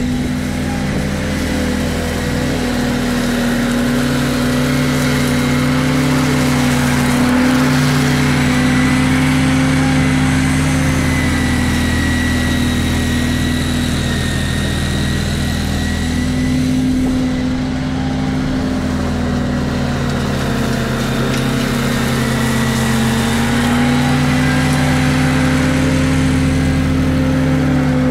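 Walker T25i zero-turn mower with its leaf vacuum running: the engine runs steadily with a high, steady whine from the collection blower as it picks up fallen leaves.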